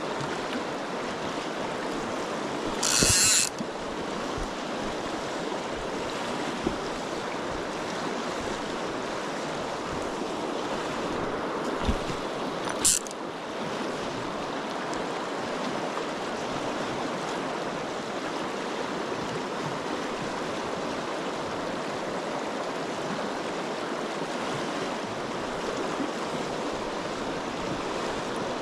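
River water running steadily in a continuous rushing hiss. A short loud hiss cuts in about three seconds in, and a brief thump and a sharp click come near the middle.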